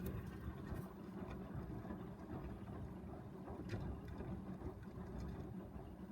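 Old Blomberg washing machine agitating: a steady low motor-and-drum rumble with a couple of faint clicks. This is the strange noise that the owner cannot identify.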